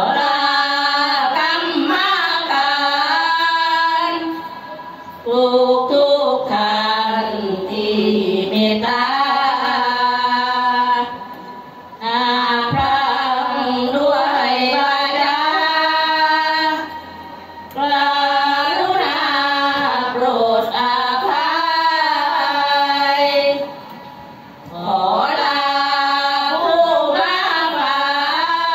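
Group of women singing sarabhanya, Thai Buddhist devotional chanted verse, in drawn-out gliding phrases of a few seconds each with short breaths between them. A brief knock falls in one of the pauses about halfway.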